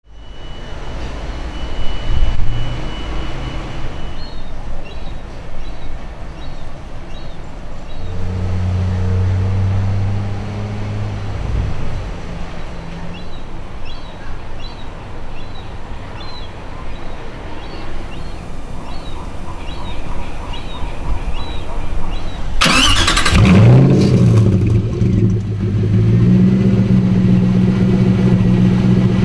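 Outdoor background noise, then, about three-quarters of the way in, the twin-turbo Ford GT's V8 is cranked and fires up with a sharp burst, settling into a steady, louder idle.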